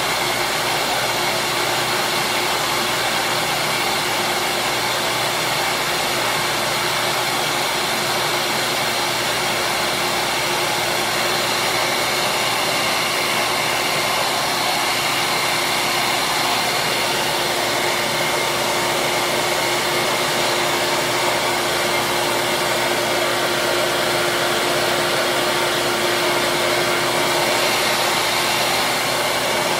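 Small bench-top power sander running steadily while plastic slider pieces are shaped against its disc: a continuous whirring hiss with a steady hum under it.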